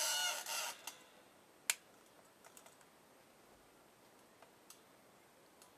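Magnifying lamp's jointed arm squeaking as it is swung into place, followed by one sharp click a little under two seconds in and a few faint clicks.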